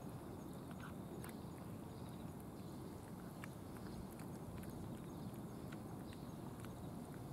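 A cat chewing food from a tray, heard as small irregular clicks, several a second, over a steady low rumble.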